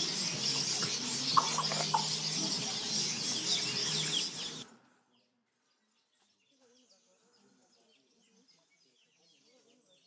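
Weaver colony chattering: a dense chorus of buzzy chirping calls that cuts off suddenly about five seconds in, leaving only faint scattered chirps.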